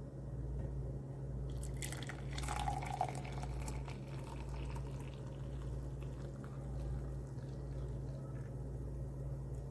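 Water pouring and splashing for about two seconds, starting about a second and a half in, over a steady low hum.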